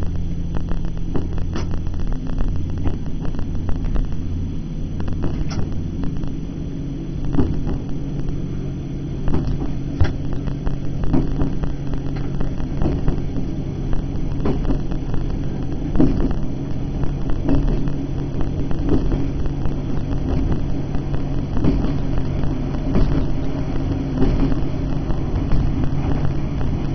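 Diesel train heard from its driving cab: the engine drones steadily under power while the wheels click and knock over the track in an irregular patter.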